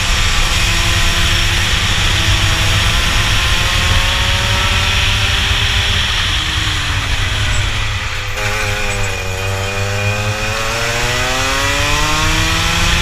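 Rotax two-stroke kart engine at full race revs, heard from on board the kart. Its pitch falls sharply about eight seconds in, then climbs steadily again as the engine revs back up.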